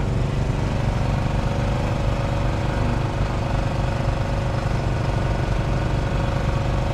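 An engine running steadily, an even mechanical drone with a strong low hum.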